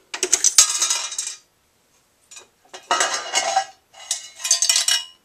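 Handset of a Western Electric three-slot payphone hung up on its hookswitch with a clank, and the coin relay collecting the deposited coins, which drop clinking into the coin box because the call was answered. Two more bouts of metallic coin clinking follow, about three and four and a half seconds in.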